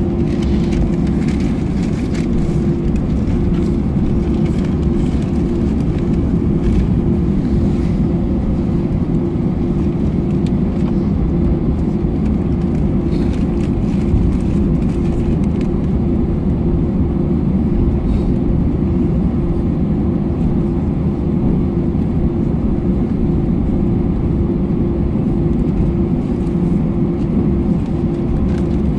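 Cabin noise of an Airbus A321 taxiing on the ground: the steady rumble and hum of its CFM56 turbofans at idle thrust, with light clicks and rattles from the airframe as it rolls along the taxiway.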